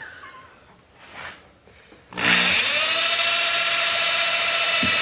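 Power drill driving a self-tapping sheet metal screw through a carbon fiber hood scoop into a car hood: the motor starts suddenly about two seconds in and runs at a steady high whine.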